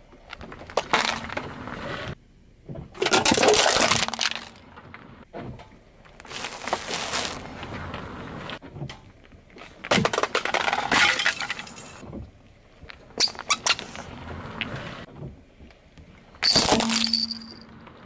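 A car tyre rolling slowly over small objects one after another, crunching and cracking plastic and metal under its weight. There are about six separate crunches a few seconds apart, with quieter gaps between.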